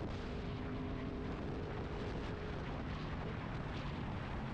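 Motorcycle riding at highway speed, recorded on the bike's own camera: a steady rush of wind noise over the microphone with the engine's low drone underneath.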